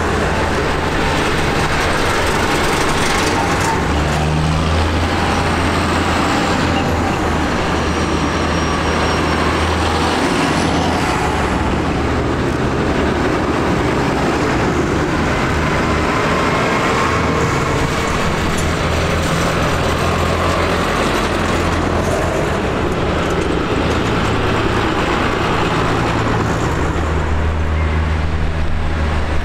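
Farm tractors, among them a New Holland T7.200, driving past one after another, their diesel engines running with a steady low drone that swells as each one comes close and fades as it moves off.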